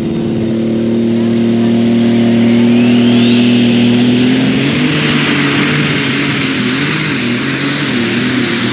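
Light Super Stock pulling tractor's turbocharged engine held at high revs at the start line, a turbo whine rising steeply over about two seconds to a shrill pitch and then holding there. About halfway through, the engine note starts to waver as it takes the load and the tractor launches with the sled.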